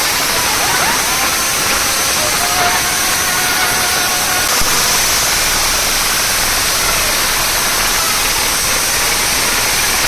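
Loud, steady roar of distorted noise with no clear beat, the overloaded sound of massed competition sound systems.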